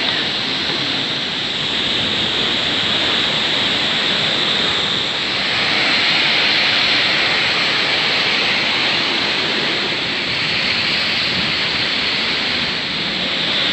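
Steady rush of river water and waterfall, an even hiss that swells a little near the middle.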